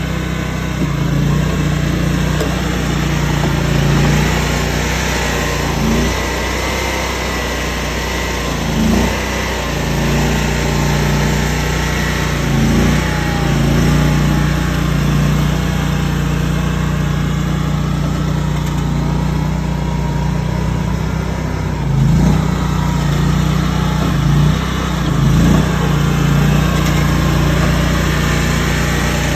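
Mini tracked skid steer's engine running steadily under work, with a handful of brief louder surges and knocks every few seconds.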